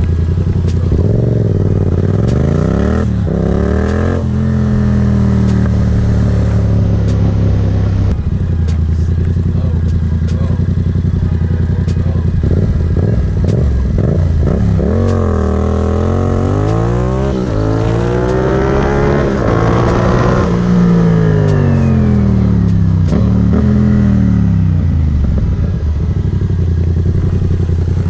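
Yamaha MT-07's parallel-twin engine through an SC Project exhaust, ridden hard: the revs climb and drop again and again as it accelerates, changes gear and eases off, holding steady for a few seconds between.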